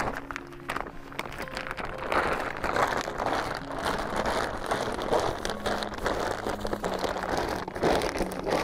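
Greenhouse plastic sheeting crinkling and rustling as it is gathered and rolled up by hand, with many small crackles.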